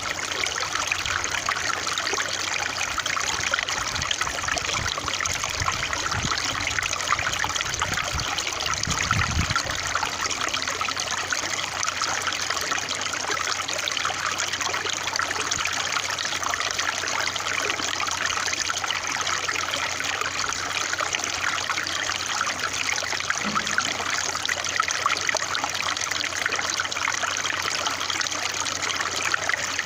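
Water trickling and splashing steadily, as of a small stream, with a low rumble underneath that stops about nine seconds in.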